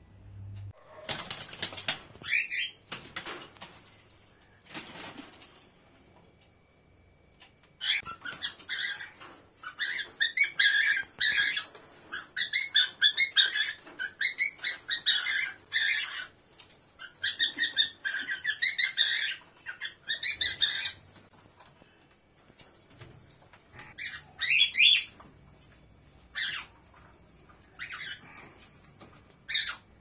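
Cockatiel singing: a long run of quick warbled chirps and whistles from about 8 to 21 seconds in, with shorter calls before and after. There are rustling wing flaps in the first few seconds.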